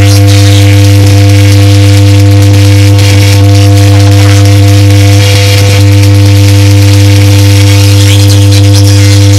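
Loud, steady electrical buzz: a low hum with a stack of steady higher overtones and a hiss on top, unchanging throughout.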